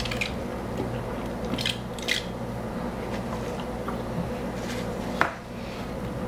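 Faint sips through a plastic straw from a fountain-drink cup and small handling sounds, over a steady low room hum, with one sharper click about five seconds in.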